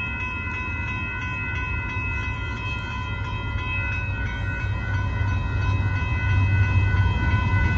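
Approaching Union Pacific freight train of hopper cars: a low rumble that grows steadily louder. A steady ringing tone of several high notes is held throughout.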